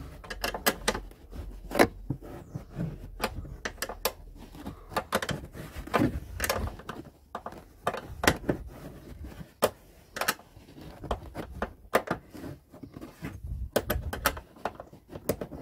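Sharp metallic clicks and clinks, irregular and several a second, of a 10 mm ring spanner working the nut that holds a Peugeot 307's rear light unit.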